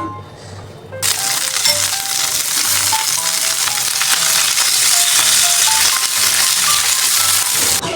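Food sizzling loudly in hot oil or over heat, a dense crackling hiss that starts abruptly about a second in and cuts off just before the end, over light background music.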